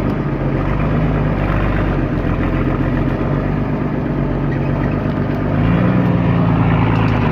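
Mercedes-Benz Unimog truck's engine running under way, heard from the cargo bed behind the cab. The revs rise about five and a half seconds in.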